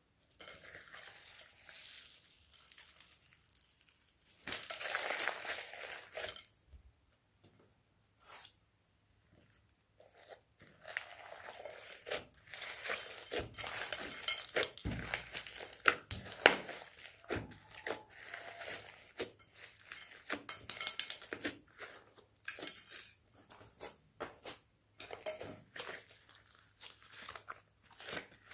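Hands squishing, stretching and poking slime, giving irregular sticky crackles, pops and tearing sounds, with short pauses between handfuls.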